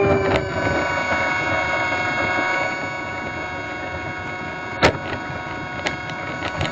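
FMS Cessna 182 RC model plane's electric motor and propeller whining, heard from on board with wind rush; the pitch settles from a slight drop at the start and then holds steady. A single sharp click comes about five seconds in.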